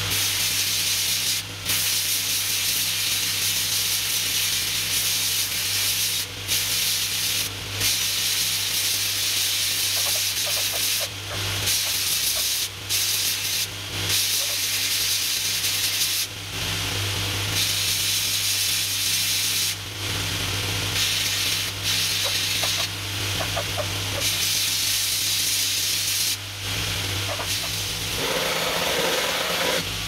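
Belt grinder running with a steady motor hum while a hardened steel piece forged from a jackhammer bit is ground on the belt, giving a loud hiss. The grinding cuts out briefly about ten times as the piece is lifted off the belt and set back.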